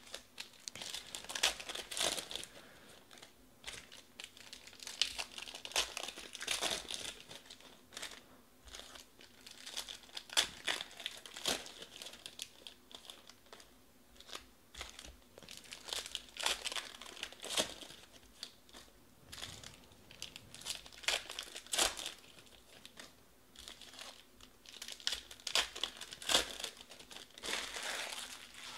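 Foil trading-card pack wrappers being torn open and crinkled by hand, in crackling bouts every few seconds with quieter gaps between.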